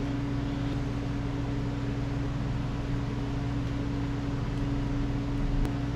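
A steady low mechanical hum with no change in pitch, and a single short click near the end.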